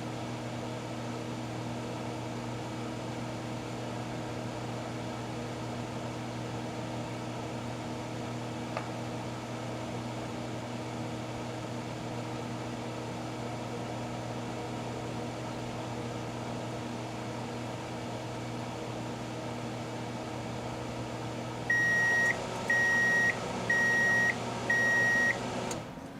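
1987 GE microwave oven running with a steady electrical hum. Near the end it gives four short, high end-of-cycle beeps about a second apart, and then the hum cuts off as the oven stops.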